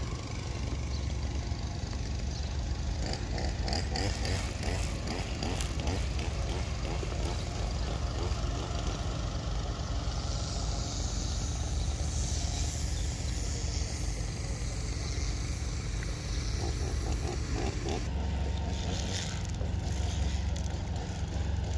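Outdoor background noise: a steady low rumble, with a few short clicks a few seconds in and a higher hiss around the middle.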